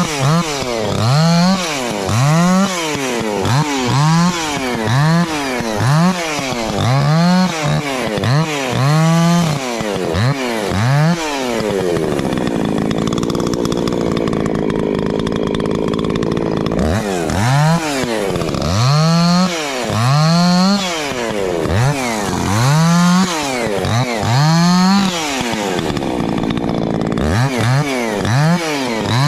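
Husqvarna two-stroke chainsaw limbing a downed tree. The throttle is blipped in quick bursts, about one a second, each one revving up and dropping back. In the middle it holds a longer steady run at high revs through a cut, and again briefly near the end.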